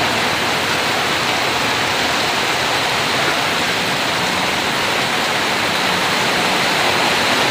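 Heavy rain in a steady, loud downpour, with runoff streaming off a roof edge.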